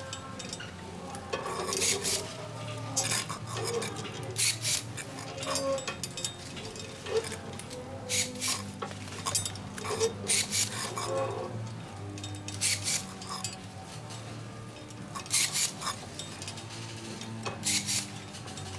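Handheld electric ring-bending tool clamping metal rings around tomato stems, with short clicking strokes at irregular intervals of a second or two, mixed with the rustle of tomato foliage being handled.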